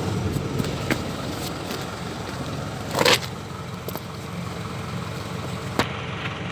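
Truck diesel engine idling steadily, with a few light clicks and one louder clatter about three seconds in.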